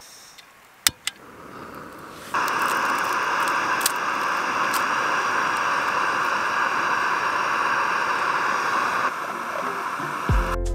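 Backpacking canister gas stove being lit: one sharp igniter click about a second in, then the burner catches and hisses steadily under its pot.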